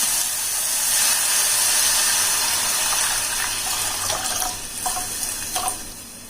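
Water poured into a hot pot of dry-roasted peppercorns, cumin, ginger and tulsi: a steady rushing hiss that dies away over the last couple of seconds, with a few small pops near the end.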